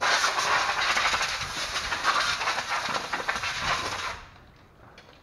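Compressed-air blow gun blasting air to blow dust out of the plastic air-filter cassette. It is a loud hissing rush that starts abruptly and cuts off after about four seconds.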